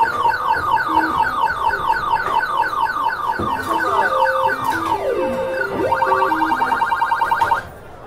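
Skee-ball machine playing an electronic beeping melody: rapid warbling beeps repeating several times a second, with a stepped tune of lower beeps joining partway through. It cuts off abruptly near the end.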